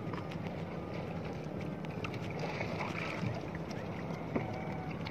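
Wet nylon gill net with caught fish being pulled hand over hand into a small wooden boat: wet rustling and scattered small clicks over a steady low rumble.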